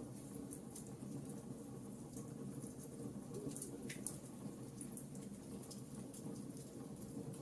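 Campfire crackling: frequent small, sharp pops and snaps at irregular intervals over a steady low rumble of burning.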